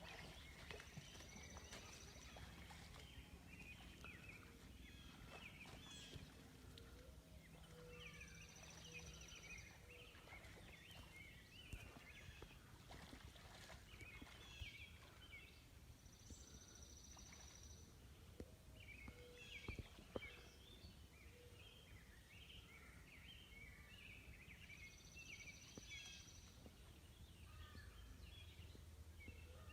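Faint outdoor ambience with distant birds chirping. A short, high buzzy call repeats about every eight seconds.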